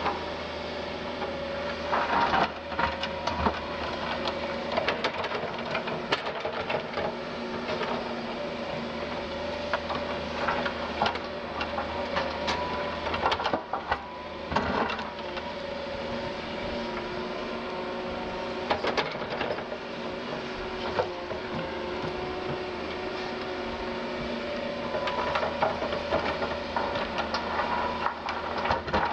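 Doosan DX180 LC crawler excavator working: its diesel engine and hydraulics run with a steady tone that shifts slightly under load. Irregular knocks and clatters from the machine at work sound throughout, loudest around two seconds in, around halfway, and near the end.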